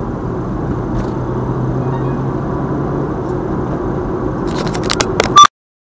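Car driving on the road, heard from inside the cabin: steady engine and tyre rumble with a low steady hum for the first few seconds. Near the end come a few sharp clicks and one loud brief burst, then the sound cuts off to silence.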